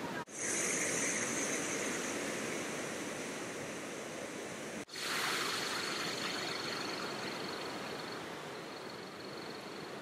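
Heavy rushing water: a muddy river in flood churning through rapids, then Huangguoshu Falls at very high flow, a steady full noise of falling and churning water. The sound drops out for an instant twice, and a thin steady high tone sits over it in the second half.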